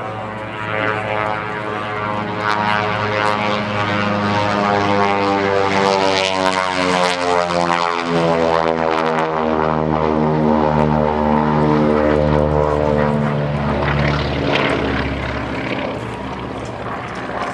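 Beech 18 twin-engine propeller plane making a low pass, its two radial engines running at high power. The engine note drops in pitch as it passes.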